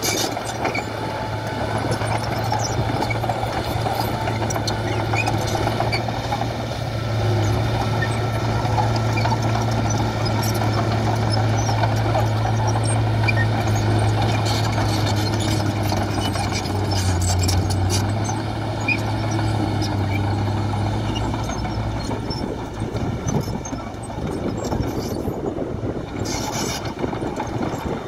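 Komatsu D31P crawler bulldozer's diesel engine running steadily as it pushes dirt and rock, with clinks and rattles from its steel tracks. The engine note drops away after about twenty seconds.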